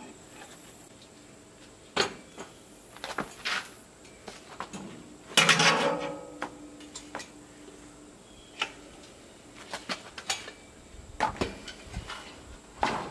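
Steel parts of a charcoal smoker clanking and scraping as its tubular leg frame and wire-mesh shelf are handled and fitted together: a run of separate metal knocks, the loudest about five and a half seconds in, ringing briefly after it.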